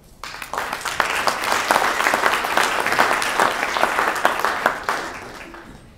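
Audience applauding. The clapping builds up in the first second and dies away near the end.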